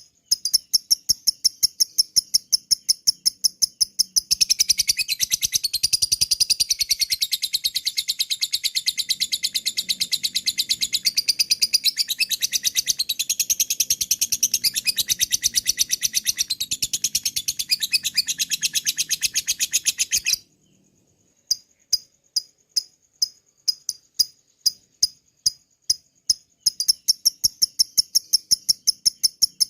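Lovebird calling: rapid, evenly repeated sharp high chirps. About four seconds in these break into a long, continuous high-pitched chattering trill, the excited 'ngekek' call. It cuts off abruptly near twenty seconds, and after a brief pause the quick repeated chirps resume.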